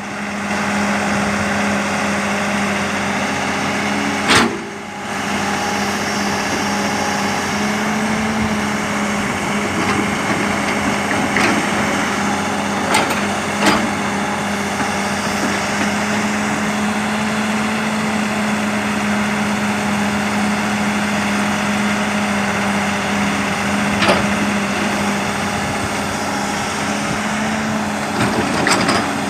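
Sumitomo S280 excavator's diesel engine running at a steady pitch, with a handful of short sharp knocks, the loudest about four seconds in.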